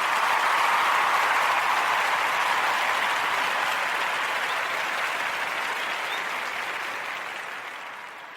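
Audience applause, steady at first and then fading gradually over the last few seconds.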